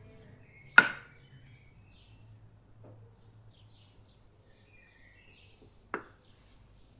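A metal spoon spreading a thick chocolate cream-cheese filling in a glass dish clinks sharply against the glass twice, once about a second in and again near the end, with a faint tap in between.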